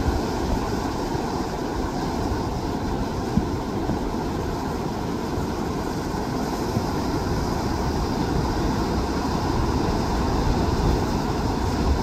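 Sea waves surging and breaking against rocks: a continuous rush of surf with a deep low rumble beneath it, steady in loudness throughout.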